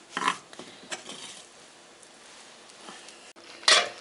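Wooden spatula scraping a frying pan as fried onion and carrot are scooped out, a few scrapes in the first second and a half, then quieter. A short loud knock near the end.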